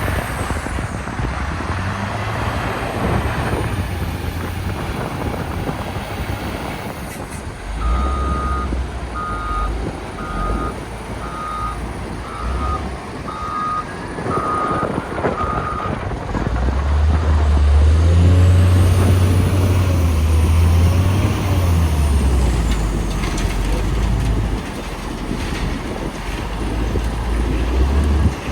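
Caterpillar 966H wheel loader's diesel engine running steadily while working, with its reversing alarm giving about ten short beeps, a little over one a second, partway through. Past the middle the engine revs up and runs louder for several seconds, the loudest part.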